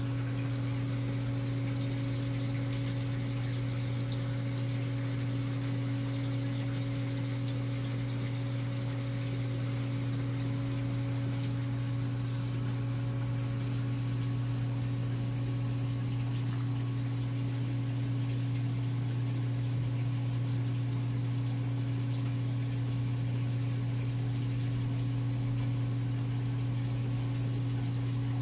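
Steady low hum of a reef aquarium's water pump running, with a faint wash of circulating water.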